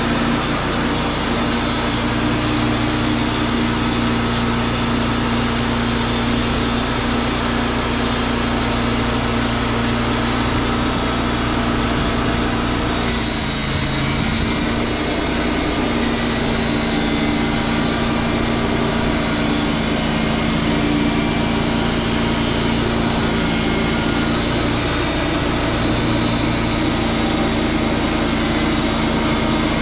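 Sawmill engine running steadily while pine boards are milled, its sound shifting about halfway through.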